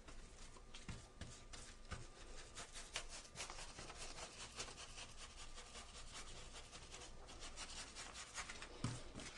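Paintbrush bristles rubbing and scraping against a textured wall as paint is pushed on and wiggled in: faint, quick, repeated strokes. A single light knock sounds near the end.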